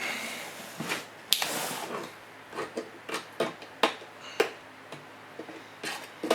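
Irregular sharp metallic clicks and short scrapes as a sealed steel surplus ammunition tin is worked at by hand, the strongest clicks about a second in and near the middle.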